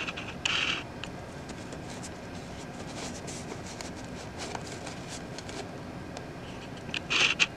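A small cardboard box being turned over in the hands: faint rubbing and light ticks of fingers on the cardboard, with two brief, louder scrapes about half a second in and near the end.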